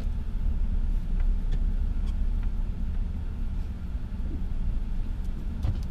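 Steady low rumble of a car heard from inside its cabin, with a few faint ticks.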